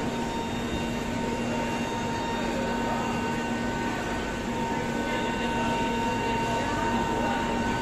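Steady mechanical hum of a stationary air-conditioned passenger train's coaches, a low drone with several high, even whines over a wash of noise, unchanging throughout.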